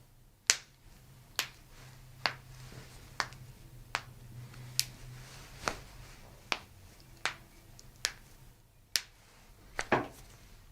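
A series of sharp, short clicks at a slightly uneven pace of a little more than one a second, about a dozen in all, over a faint low hum.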